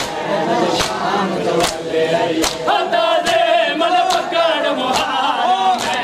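Crowd of men chanting a noha in unison, with a sharp collective slap of hands on chests (matam) about every 0.8 seconds keeping the beat.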